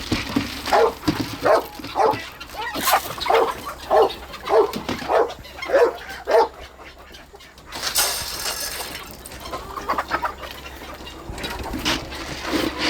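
A dog barking in a quick, regular series, about two barks a second, for around six seconds before it stops. A short rustling noise follows a little later.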